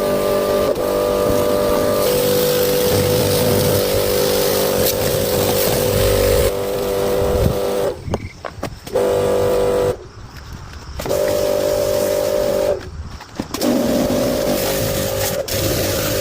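A car engine running steadily with a hum, in several short cuts with abrupt drops in level between them.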